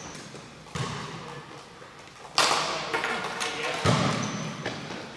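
Three sharp knocks about a second and a half apart, the last two the loudest, each trailing off in the long echo of a large gymnasium.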